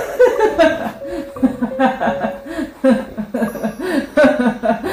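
A woman laughing in a long string of short chuckles, about three a second.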